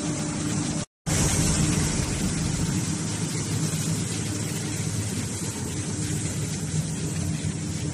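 Hydraulic baler machinery running: a steady mechanical hum with a hiss over it. The sound cuts out completely for a split second about a second in, then carries on unchanged.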